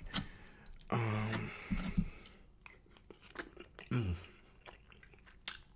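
Close-miked eating sounds: a wooden spoon scooping rice in a metal pan, then mouth clicks and chewing on a mouthful of cheesy spicy rice. Short hummed voice sounds come about a second in and again near four seconds in; the later one falls in pitch.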